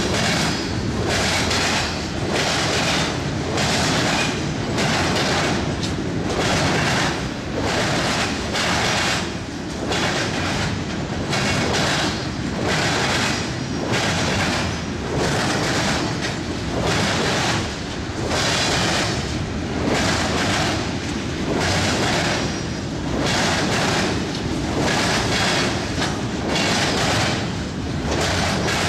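Freight train cars rolling past, their wheels clacking over the rail joints in a steady rhythm of about three beats every two seconds over a continuous rumble.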